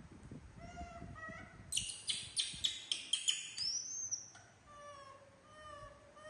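Young pet macaques calling: short, high, rising-and-falling coos, then a run of about seven loud, shrill screams about two seconds in, a high squealing whistle, and more coos. They are screaming impatiently for a snack.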